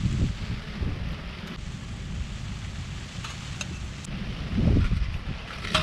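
Strong wind rumbling and buffeting the microphone, with a stronger gust about four and a half seconds in, over the hiss of falling rain and a few light ticks.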